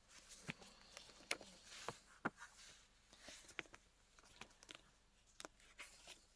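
Faint, irregular light clicks and taps from small objects being handled, over quiet room tone.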